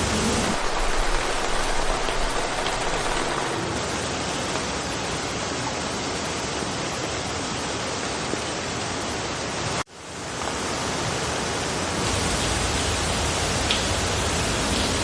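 Steady rain falling through a forest, an even, dense hiss. About ten seconds in it cuts out abruptly and fades back in over about a second.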